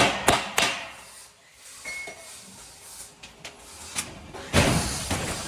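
Three sharp knocks in quick succession, a few lighter clicks, then a louder rush of noise about four and a half seconds in that slowly dies away.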